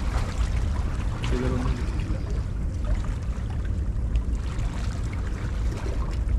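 Sea water lapping and trickling among concrete breakwater blocks, over a steady low rumble.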